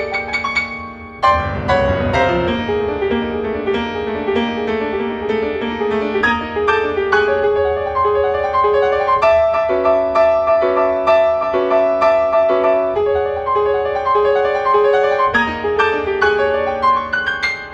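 Solo piano playing contemporary classical music: a loud low chord struck about a second in, then fast repeated figures of notes in the middle register.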